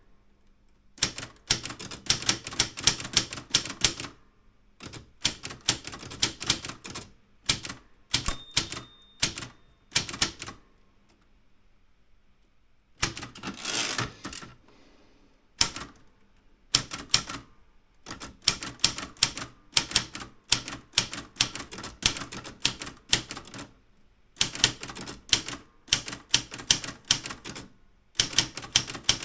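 Typewriter typing in quick runs of keystrokes broken by short pauses. A bell rings briefly about eight seconds in, and about thirteen seconds in a longer sliding sound follows, as of the carriage being returned.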